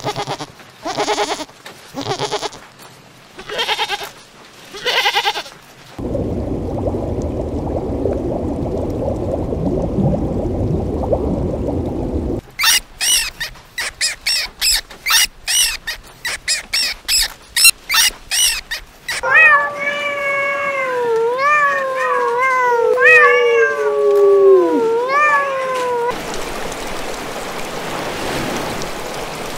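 A run of animal sounds in turn: a goat bleating about five times, then a steady low noise, then a fast string of sharp clicks as gerbils feed, then a cat meowing over and over in calls that slide up and down, and near the end a shallow stream running.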